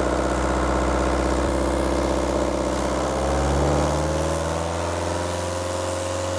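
Peugeot diesel engine running steadily at raised revs on cleaning fluid fed from a fuel-system cleaning machine, during an intake and valve clean. Its pitch rises slightly about four seconds in.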